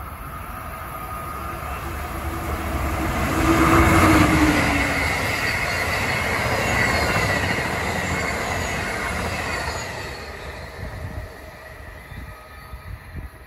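Amtrak passenger train passing a station platform at speed: the sound builds to its loudest as the locomotive goes by about four seconds in, the coaches' wheels rush past, and it fades after about ten seconds. A short tone dips in pitch as the front passes.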